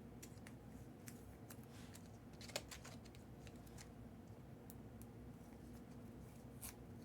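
Faint handling of trading cards: light clicks and rustles as cards are sorted, with one sharper tap about two and a half seconds in, over a low steady hum.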